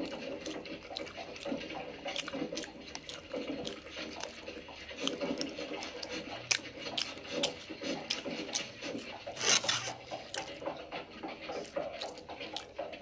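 A person eating oxtail close to the microphone: chewing with irregular wet mouth clicks and smacks, and a louder noise about nine and a half seconds in.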